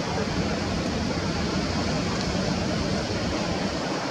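Steady rushing background noise at an even level, with no distinct events.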